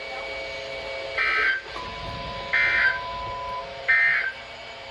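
Three Emergency Alert System end-of-message data bursts from a NOAA Weather Radio broadcast, heard through a radio speaker: short bursts of warbling digital tones about a second and a half apart, signalling the end of the severe thunderstorm warning. Fainter steady tones sound underneath.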